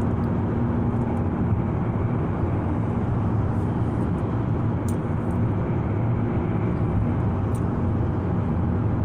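Steady road and engine noise heard inside a moving car's cabin, with two faint clicks.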